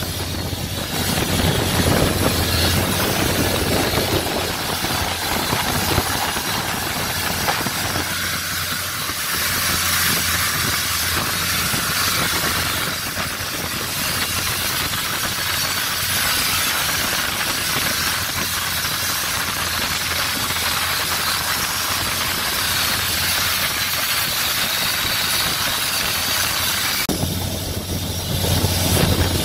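Longtail boat's engine running steadily under a loud wind and water hiss. The low engine hum is stronger for the first eight seconds and again near the end, and recedes behind the hiss in between.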